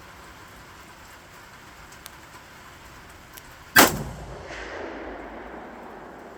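A single shot from an AKM-pattern rifle chambered in 7.62×39 mm, about four seconds in, its report echoing and fading over roughly two seconds.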